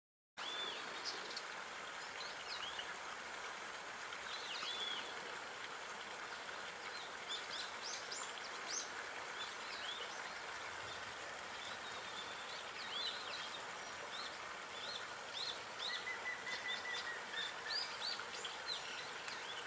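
Small birds chirping and twittering again and again over a steady outdoor background hiss. A longer held note runs briefly near the end.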